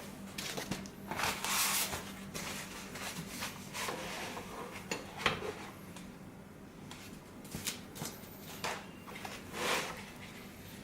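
Handling noise from an aftermarket car head unit and its wiring being moved about: irregular rustles and scrapes with a few clicks, a sharp one about five seconds in.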